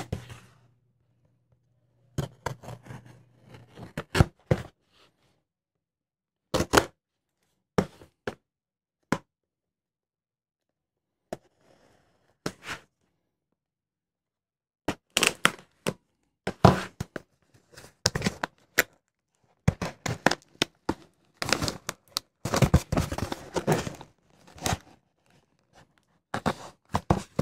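Folding knife cutting packing tape and cardboard on a shipping box, with tearing, scraping and knocks as the box is handled. The sounds come in short separate bursts and grow busier over the last dozen seconds.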